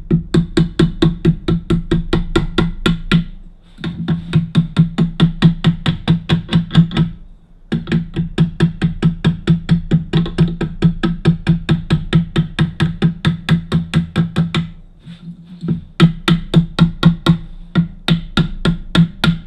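Quick, even hammer taps on a steel socket, about five a second, each with a short metallic ring, pressing the chrome retaining cap back onto a Jeep door lock cylinder. The tapping stops briefly three times and starts again.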